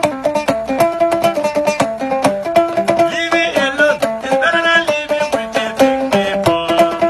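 Instrumental music on a plucked string instrument picking a fast, repeating pattern of notes, with a higher melodic line coming in around the middle.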